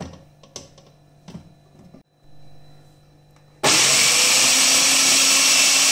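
A few light clicks and knocks, then about three and a half seconds in an electric food processor fitted with a grater disc switches on and runs loudly and steadily, its hum rising briefly as the motor spins up to speed.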